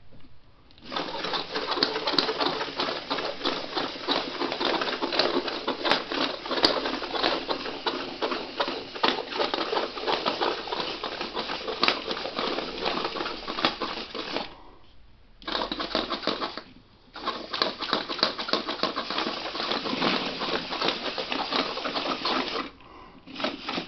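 Home-built remote-controlled four-legged walking robot running: its motors and plastic gears whir and clatter as the legs step on a laminate floor. The clatter is broken by three short stops, two close together past the middle and one near the end.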